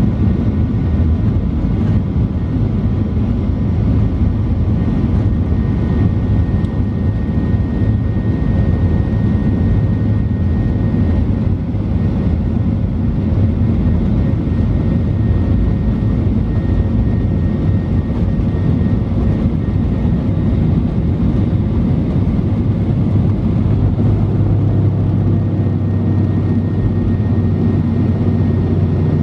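Boeing 737-800's CFM56-7B turbofan engines at takeoff thrust, heard from inside the cabin during the takeoff roll: a steady loud rumble with a faint high whine over it.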